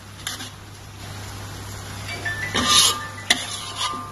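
A metal spoon scraping and scooping in a metal wok as a wet vegetable stew is ladled onto a plate. There are a few scrapes, the loudest about two and a half seconds in, then a sharp tap just after, over a steady low hum.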